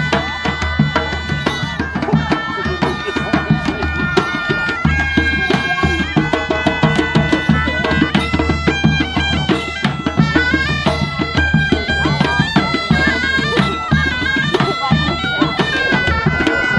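Folk music on bagpipes, a melody stepping over a steady drone, with a drum keeping a beat.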